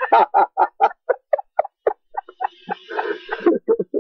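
A person's voice in quick, short, pitched bursts, about four or five a second, with a faint hiss joining in the second half.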